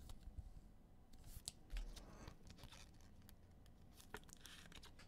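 Faint handling of trading cards and pack wrappers: soft rustling with scattered light clicks and snaps as cards are slid and flipped.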